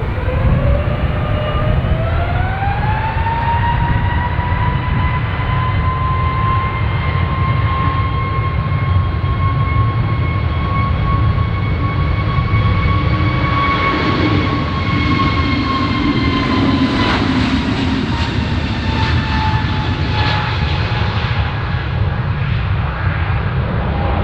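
Airbus A320neo's CFM LEAP-1A turbofan engines spooling up to takeoff thrust, a whine rising in pitch over the first few seconds, then a steady high whine over a deep rumble through the takeoff roll and lift-off. About two thirds in the whine drops slightly in pitch.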